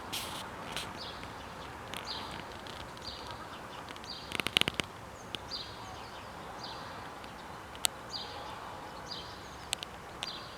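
Outdoor ambience with a short, high, slightly falling chirp repeated about once a second over a steady hiss. A quick run of sharp clicks comes a little before the middle, with a few single clicks later.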